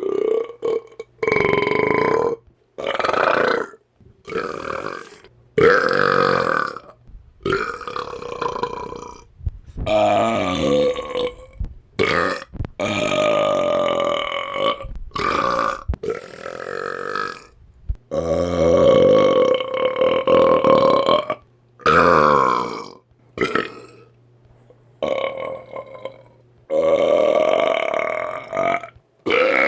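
A man belching deliberately, one large pitched burp after another: about fifteen separate belches, some brief and some drawn out for several seconds, with short pauses between them.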